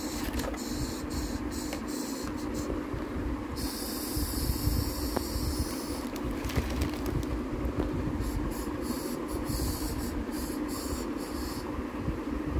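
Crinkling and rustling of a foil takeaway container, its plastic lid and a paper carry bag as they are handled, in three long stretches with short crackles, over a steady low rumble.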